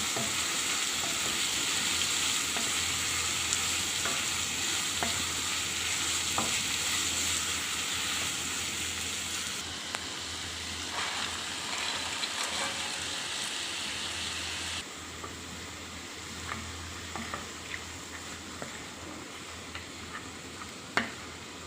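Food sizzling as it fries in a pan, with the clicks and scrapes of a utensil stirring it. The sizzle drops in level twice, about ten and fifteen seconds in, and a single sharp knock comes near the end.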